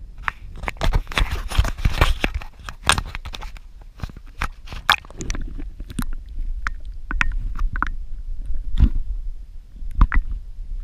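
Muffled sound of a camera submerged in water: a low rumble of moving water with many irregular clicks and knocks against the camera housing.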